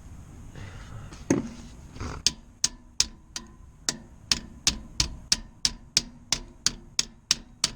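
Two knocks, then a steady run of sharp clicks at about three a second, typical of a ratchet wrench being worked to tighten the blower motor's mounting band.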